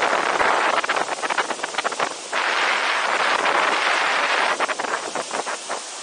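Rushing whitewater pouring over a rock ledge into a gorge, a steady loud wash of noise, with wind buffeting the microphone in gusts.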